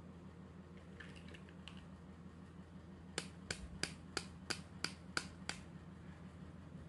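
Small hard-plastic toy pieces clicking against a pink plastic holder as they are handled: a few faint clicks, then a run of eight sharp clicks at about three a second.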